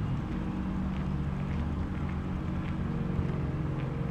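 A steady low mechanical hum that holds one even pitch throughout, with a few faint ticks over it.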